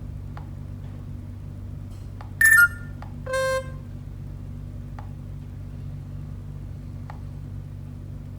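Two short electronic beeps from a smartphone loudspeaker, about two and a half and three and a half seconds in, the first higher and louder than the second. A steady low hum and a few faint taps run underneath.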